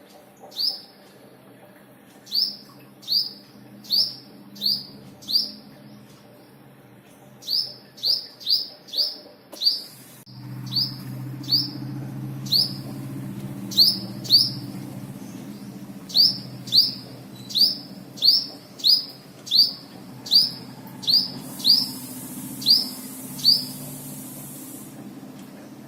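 A small bird giving a long series of short, sharp chirps that fall in pitch, one every half second to a second, in runs with brief pauses. A low steady hum comes in about ten seconds in.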